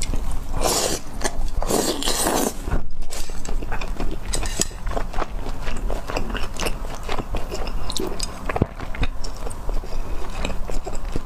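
Close-miked eating: two long slurps of noodle-like strands about a second and two seconds in, then steady chewing with many wet clicks and smacks.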